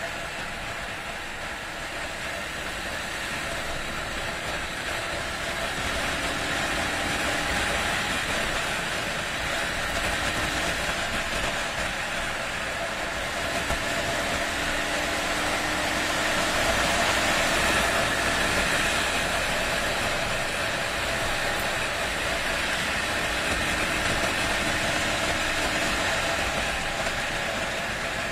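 Honda XR250 single-cylinder four-stroke motorcycle engine running steadily at riding speed, mixed with steady wind and road noise; the engine note shifts slightly as it goes.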